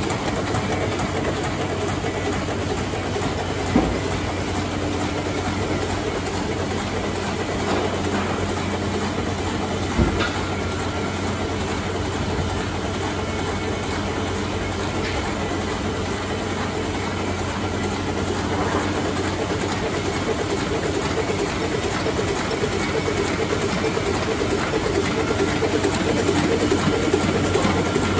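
2008 Heidelberg Speedmaster SM52-2 two-colour sheet-fed offset printing press running steadily with a low hum. Two short sharp knocks about four and ten seconds in, and the sound grows a little louder near the end.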